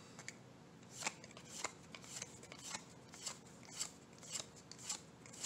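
Magic: The Gathering cards being flipped through one at a time by hand, each card-stock card sliding and flicking to the front of the stack with a short, soft snap about twice a second, beginning about a second in.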